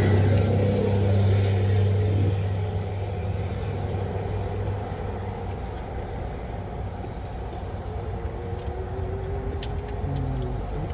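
Motor vehicle engine running with a steady low hum that eases off about two seconds in, leaving a quieter rumble.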